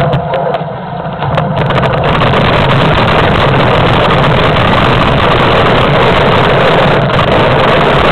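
Loud, steady rush of wind on the camera microphone mixed with the rattle of a mountain bike descending a rough, rocky downhill trail. The noise eases briefly about a second in.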